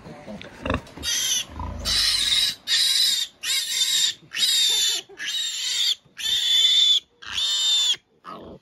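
A piglet squealing: about eight long, shrill squeals in quick succession, starting about a second in.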